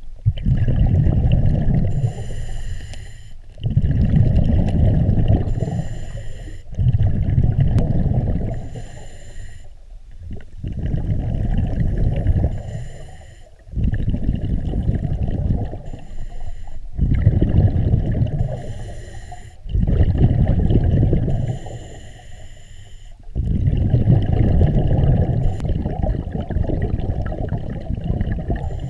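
Scuba diver breathing underwater through a regulator: slow, regular breaths, about eight in all, each with a hiss and a loud rumble of exhaled bubbles.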